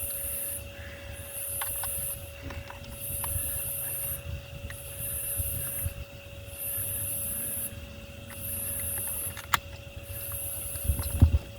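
Night insects calling in a rhythmic chorus: high buzzing bursts about a second long with short gaps, over a low rumble, with a sharp click near the end.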